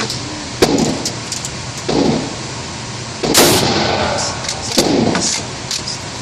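Gunshots at a shooting range: about four sharp reports over a few seconds, each trailing off in echo, the loudest about halfway through.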